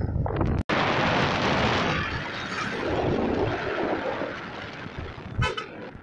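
Wind and road noise on the microphone of a moving two-wheeler, dropping out for an instant under a second in. A short vehicle horn beep sounds about five and a half seconds in.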